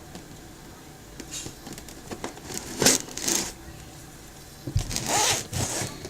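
Knife cutting through packing tape on a cardboard box as it is worked open: a few short scraping rips with pauses of handling between them, the loudest about three seconds in and another near five seconds.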